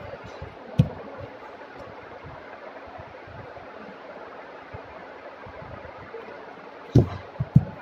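Steady background hiss, with one sharp knock about a second in and two heavy thumps near the end.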